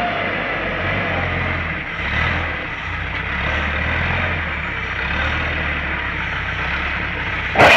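LPG forklift's engine running, its pitch stepping up and down as it drives and manoeuvres, with one loud bang near the end.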